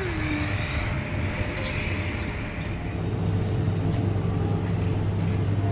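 Steady low rumbling background noise. About three seconds in it gives way to a steadier low hum, with a few faint clicks.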